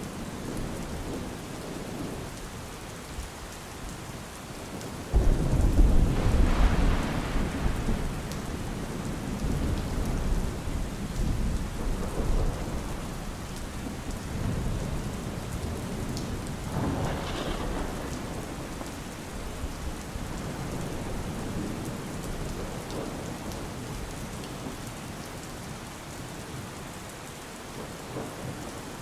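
Steady rain with thunder: a sudden low rumble breaks in about five seconds in, loudest for a couple of seconds and then slowly dying away, and a second, smaller roll of thunder comes later.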